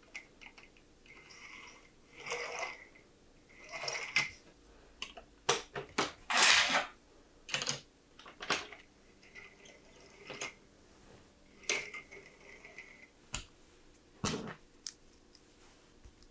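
Plastic LEGO pieces being handled, with sharp clicks as parts are snapped together and short rattling, scraping bursts.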